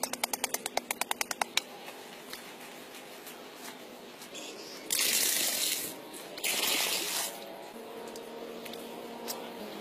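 Bare hands scraping and scooping dry, crumbly soil out of a hole: a quick run of scratches, then two louder hissing scrapes about five and six and a half seconds in.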